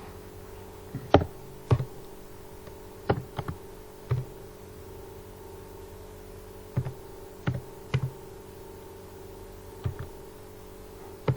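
Irregular light taps and knocks, about a dozen, scattered through a pause over a steady low hum; the sharpest comes about a second in.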